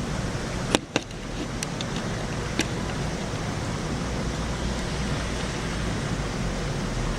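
Steady hiss of heavy rain falling during a thunderstorm, with a few sharp clicks about a second in.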